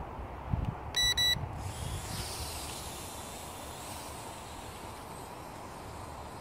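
Two short, high electronic beeps in quick succession about a second in, preceded by a dull low thump, over a steady hiss.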